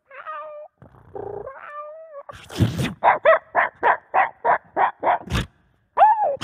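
Beatboxer's voice into a cupped handheld microphone imitating a dog: short gliding whines, then a rapid run of about ten yips at about four a second, a sharp pop, and one more whine near the end.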